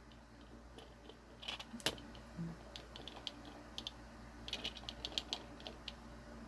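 Faint, scattered light clicks and ticks of a small plastic Happy Meal toy being handled and rolled.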